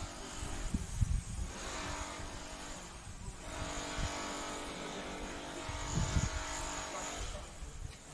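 Motor vehicles driving past, two in succession: engine and tyre noise swells and fades, then swells again for longer.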